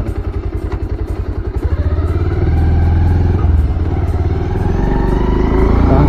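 Bajaj Pulsar motorcycle's single-cylinder engine idling with an even low putter, then revving up and rising in pitch as the bike pulls away, about two seconds in, and gathers speed.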